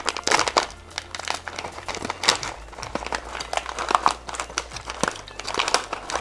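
An MRE pouch of toasted corn kernels being torn open by hand and handled, its stiff plastic-foil laminate giving off irregular crinkling and crackling with a tearing rip.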